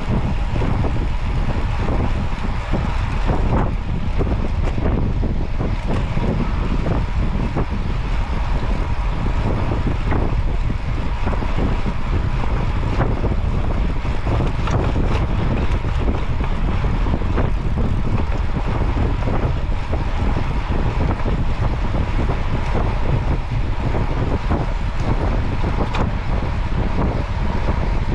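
Wind buffeting the microphone of a camera on the move, a steady low rumbling rush with constant flutter and road noise under it.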